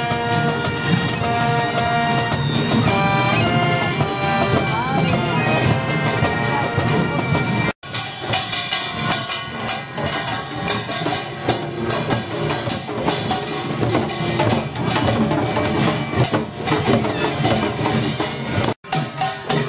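A marching pipe band plays: bagpipes over a steady drone, with brass and a bass drum. About eight seconds in it cuts to a Korean pungmul troupe's percussion, buk barrel drums and sogo hand drums beaten in a dense, fast rhythm.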